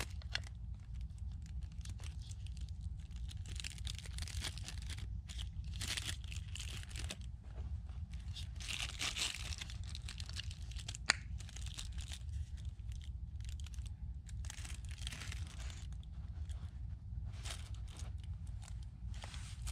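Irregular crinkling and rustling, like packaging or other small items being handled by hand, with one sharp click about eleven seconds in, over a low steady hum.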